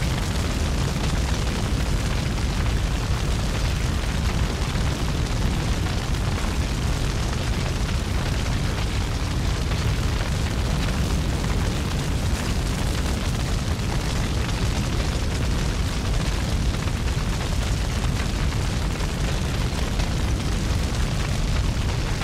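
Continuous rumbling roar: an even, loud noise, heaviest in the deep low end, with no beat, tone or pause.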